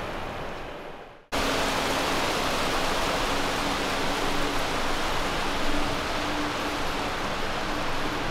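Airliner jet engine noise fading away over the first second, then, after a sudden cut, another steady, loud jet engine noise with a faint steady hum running through it.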